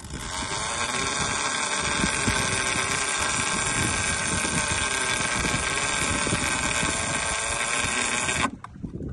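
A motor running with a steady, even whine that cuts off suddenly near the end.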